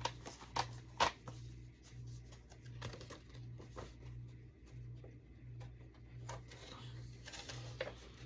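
Handling noise from a plastic DVD case being opened and its paper insert being moved: a few sharp clicks and light rustling over a steady low hum.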